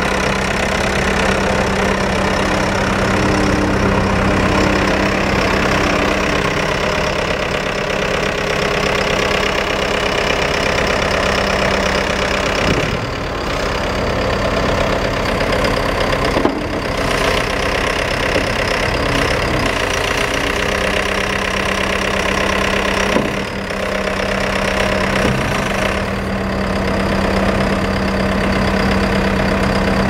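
Perkins four-cylinder diesel engine of a 2004 Mustang 2109 skid steer running steadily as the machine drives and raises its bucket.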